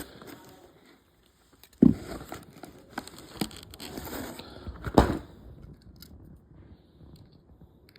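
Diecast toy car packaging being handled and opened: crackling plastic and cardboard with scattered clicks, and two sharp knocks, about two seconds in and at five seconds.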